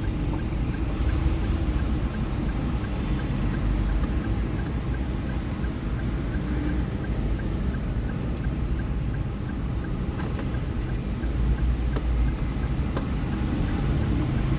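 Toyota Rush's engine idling steadily, a low rumble with a faint light ticking a few times a second, and a couple of small clicks.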